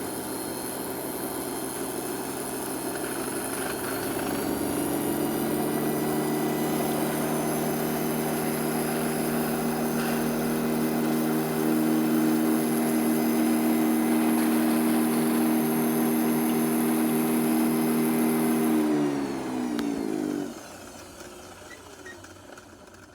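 Stark No. 4 lathe running at high speed: a steady motor hum and whine that speeds up about four seconds in, holds steady, then winds down with falling pitch near the end as it is switched off. It runs without vibration.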